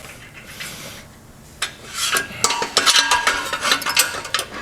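Metal clicks, clinks and rattles of a hinge routing station's index pin and stop being released, slid along the scale and pinned back in place. A soft rub at first, then a quick run of sharp clicks and clinks from about a second and a half in, with a faint metallic ring in the middle.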